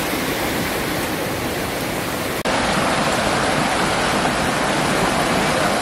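Steady rushing of a flowing river. The sound briefly drops out about two and a half seconds in and comes back a little louder.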